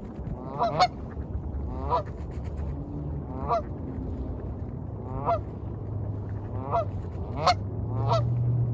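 Waterfowl calling repeatedly, a short nasal call every second or two, over a steady low rumble of waves.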